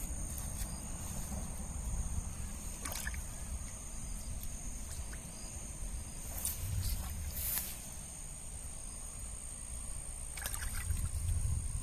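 Insects trilling steadily in two high tones over a low rumble, with a few short sharp clicks scattered through.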